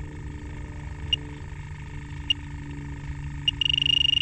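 Electronic refrigerant leak detector beeping slowly while it searches, then switching to a loud continuous alarm tone about three and a half seconds in as it picks up R-410A trace gas leaking from the schrader core in the suction service port.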